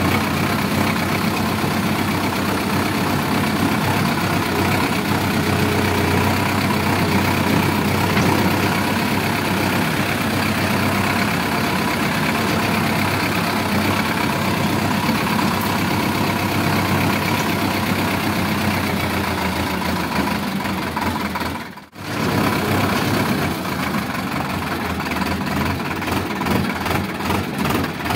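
Sonalika DI 750 tractor's diesel engine running steadily as the tractor drives along. The sound cuts out for a moment about three quarters of the way through, then comes back a little more uneven.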